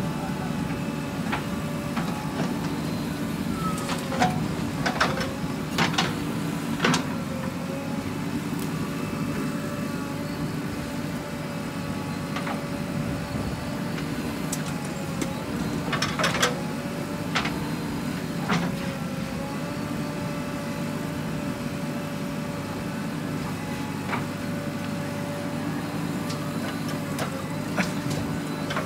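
JCB backhoe loader's diesel engine running steadily under load while the backhoe digs and loads soil, with a wavering whine over it. Sharp metallic clanks from the digging arm and bucket come in a cluster a few seconds in and again about halfway, with single ones near the end.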